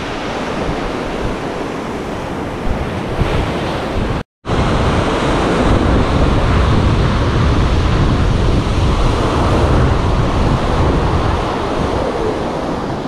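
Sea waves washing on the shore, with wind buffeting the microphone in a steady low rumble. The sound cuts out completely for a moment about four seconds in, then comes back stronger.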